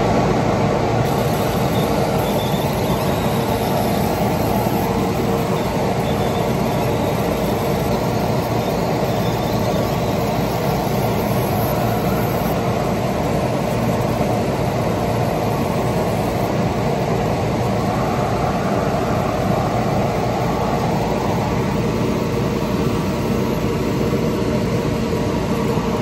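Fume extractor blower running at full speed, pretty loud and steady, while a fiber laser engraves chrome Zippo lighters, adding a faint high hiss through the first half.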